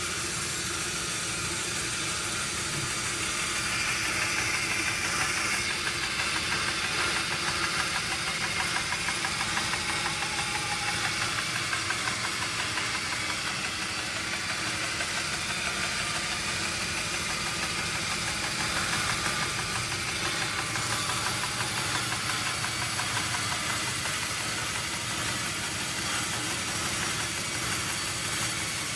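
Sawmill machinery running steadily, an engine-like sound with a fast even pulse and a broad hiss over it.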